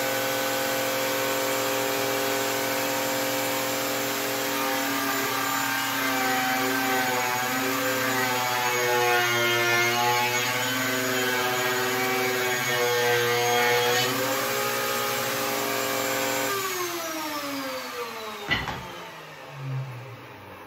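Electric router with a large round-over bit running at full speed, its pitch sagging and wavering while the bit rounds over the edges of a hardwood frame strip. It is then switched off and winds down with a falling whine, and a single sharp clack sounds near the end.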